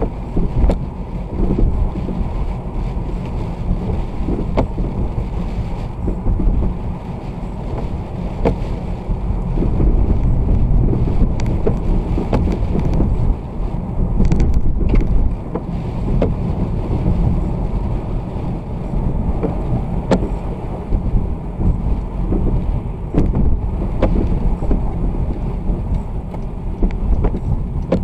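Wind buffeting the microphone over the road noise of a moving vehicle, a loud, steady low rumble with scattered light ticks.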